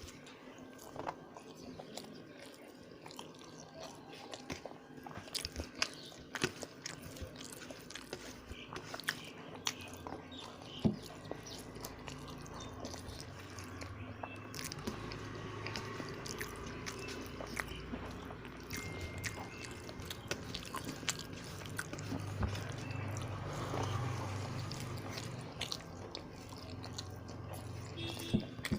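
Close-miked eating sounds of a person chewing a meal of egg curry, with frequent small wet clicks and smacks of the mouth throughout.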